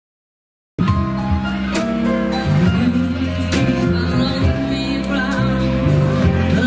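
A live pop band playing: electric guitar, bass guitar and keyboards over a regular beat, with a woman singing. The music cuts in suddenly from silence about a second in.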